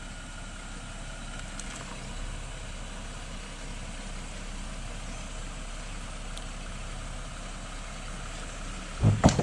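Jeep engine running steadily at low revs, idling or crawling in low range.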